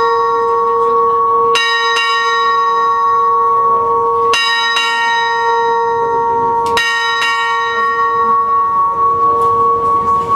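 A bell struck three times, about two and a half seconds apart, each strike ringing on steadily into the next.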